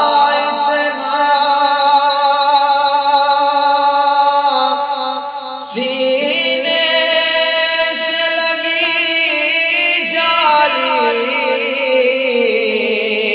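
A man chanting an Urdu naat in an unaccompanied voice, drawing out long held notes with a wavering ornament. There is a short breath about halfway through, then a new phrase starts.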